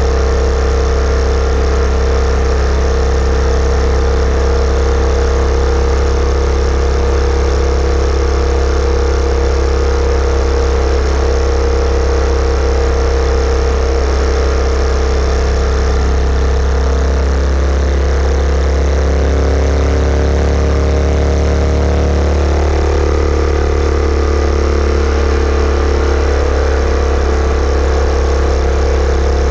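Yamaha SR400's air-cooled single-cylinder four-stroke engine running as the bike is ridden. Its note holds steady for the first half, then shifts up and down in pitch through the second half.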